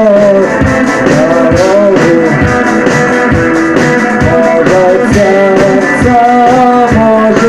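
Live rock band playing an instrumental break: a lead guitar melody with bending notes over a steady drum beat and bass.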